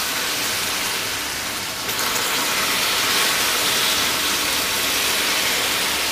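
Melted sugar caramel hissing and spattering as cold water is poured into the hot pan, a little at a time, making a steady hiss of steam.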